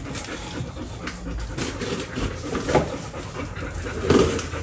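A dog panting up close, with a few light clicks and knocks.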